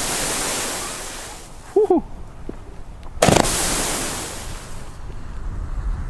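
Firework battery firing shot after shot: a sharp bang about three seconds in, and each shot trails a hissing spray of sparks that fades over a second or two. Near two seconds in there is a brief rising-and-falling tone.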